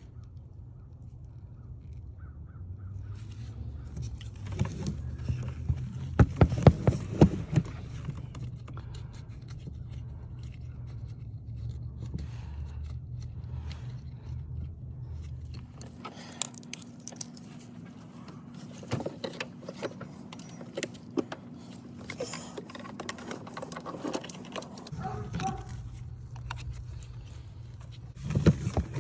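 Metal tools clinking and scraping in bursts over a steady low hum. About halfway through, the hum gives way to a steadier, higher tone, which drops out again near the end.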